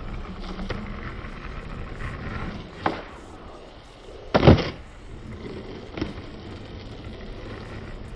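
Skateboard wheels rolling on asphalt during a backside heelflip. There is a sharp click about three seconds in, then the board lands with a loud clack about four and a half seconds in and rolls on, with one lighter click soon after.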